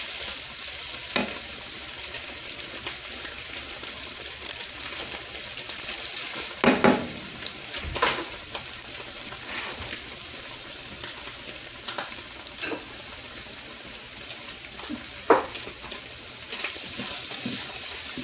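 Onions and scrambled egg sizzling steadily in hot oil in a wok, with a few sharp knocks and scrapes of a utensil against the pan as it is stirred.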